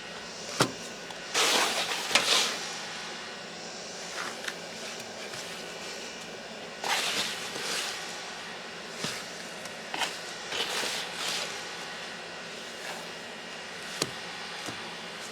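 Wet mortar being scooped and dropped into plastic paver molds: rough scraping and splattering in three short spells, with a couple of sharp knocks.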